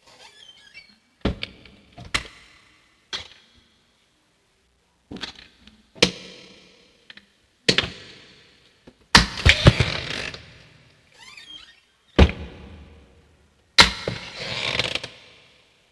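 Cabinet doors being opened and shut over and over: about ten sharp wooden thunks and clicks as the doors close, one quick rattling cluster of knocks about nine seconds in, and faint hinge squeaks between some of the shuts.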